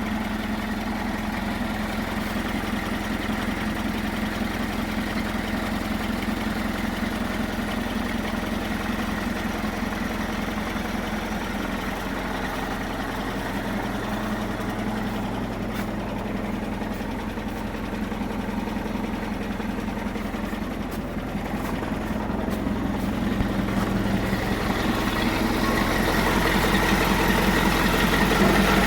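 Case 580 Super K backhoe engine idling steadily, getting a little louder over the last several seconds.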